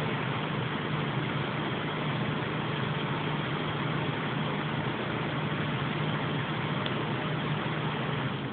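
Corsair VX 550W computer power supply giving off a steady, fairly loud drone with a low hum underneath. This is the odd noise it makes when the PC is put to sleep or shut down after running hard under a dual-graphics-card load.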